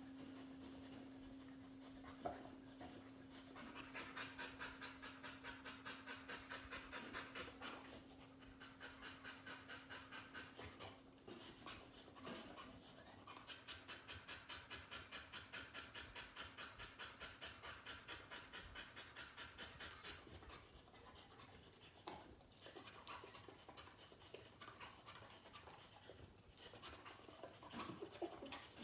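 A boxer dog panting in bouts of about three breaths a second. Under the first part, a singing bowl's steady tone rings on and fades away.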